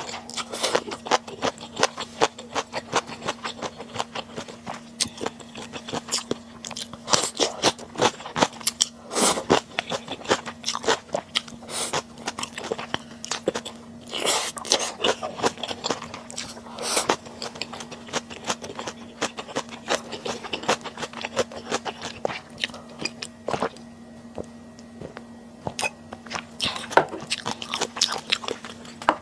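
Close-miked eating sounds of stir-fried webfoot octopus being bitten and chewed: a dense, irregular run of short wet clicks and smacks, over a faint steady hum.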